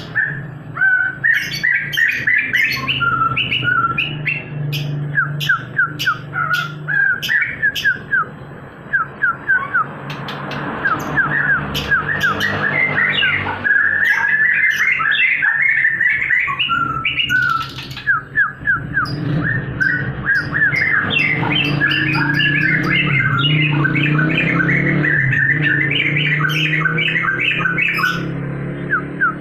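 Songbird chattering in fast runs of short, repeated chirps and rising squeaky notes, almost without pause: a lure recording of the kind played to get a caged crested bird that has gone quiet to start singing.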